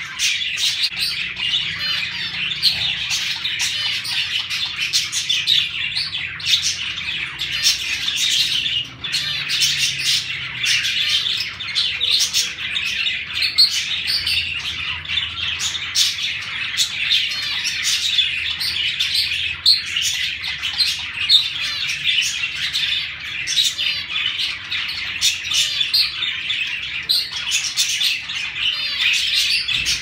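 Mixed aviary flock of budgerigars, cockatiels and zebra finches calling over one another in a dense, unbroken chatter of short, high chirps.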